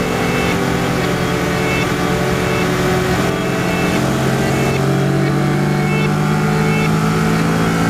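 Kawasaki Versys 650's parallel-twin engine running at road speed under a rush of wind noise, its pitch stepping up a little about five seconds in as the bike speeds up.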